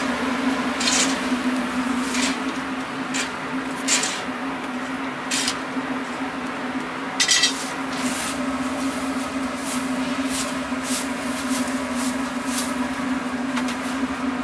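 A steady low machine hum at one pitch, with scattered sharp clicks and crackles over it.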